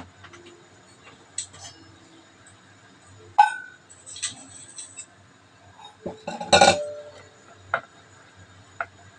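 Scattered clinks and taps of a small stainless steel bowl and kitchen utensils being handled, some with a short metallic ring, and a louder clatter of knocks about two-thirds of the way through.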